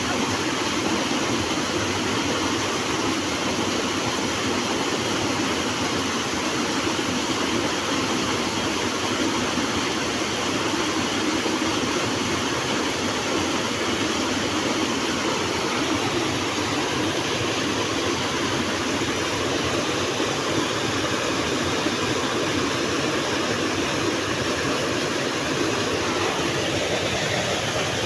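Small river waterfall rushing steadily into a rocky pool, a continuous even roar of falling water with no breaks.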